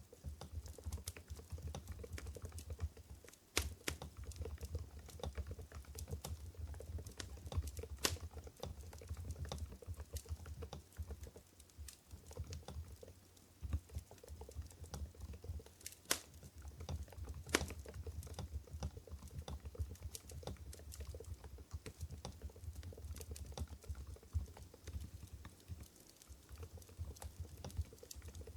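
Continuous fast typing on an Mstone Groove GV10 keyboard fitted with silent Coral 45 g switches, a dense patter of soft key clicks with a few louder single strokes.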